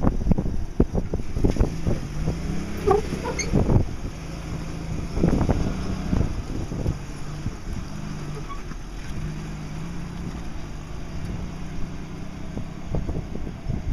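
Toyota FJ40 Land Cruiser engine working under load as it crawls up steep slickrock, its pitch rising and falling as the throttle is worked. Gusts of wind buffet the microphone, heaviest in the first few seconds.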